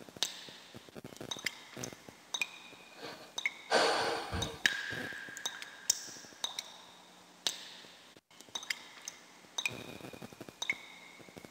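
Quiet, sparse pings and small clicks, with a brief rush of noise about four seconds in, followed by a held high tone.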